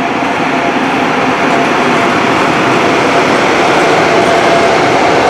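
ChS4 electric locomotive and its passenger coaches rolling past close by as the train arrives at a station: a loud, steady rumble of wheels on rails with a faint high whine running through it.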